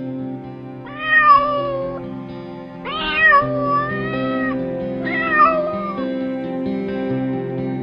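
Three drawn-out animal calls, each bending in pitch, about a second in, about three seconds in and about five seconds in, over soft acoustic guitar music.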